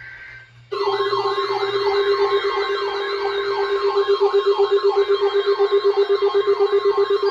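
Electronic alert siren for a tornado watch coming into effect, starting abruptly about a second in: a fast warble sweeping up and down three or four times a second over a steady low tone.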